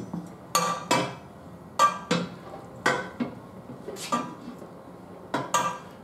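Steel bar of a manual tire changer clanking against the changer's centre post and the steel wheel rim as it is worked around to mount a tire bead: about nine sharp metallic clanks with a short ring, many in pairs a third of a second apart.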